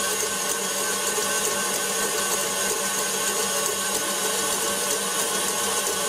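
Electric stand mixer running steadily, its wire whisk whipping egg whites into meringue in a stainless steel bowl: an even motor whine over a hiss.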